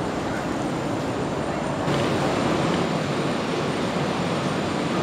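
Steady background noise: an even hiss and low rumble with a faint steady high whine, turning a little louder and brighter about two seconds in.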